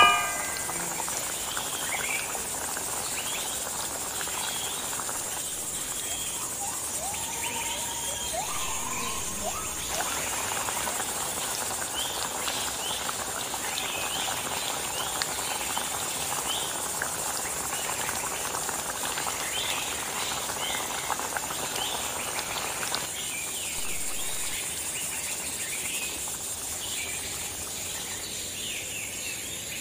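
Birds chirping and calling, with a few whistled glides about six to nine seconds in, over a steady high insect drone.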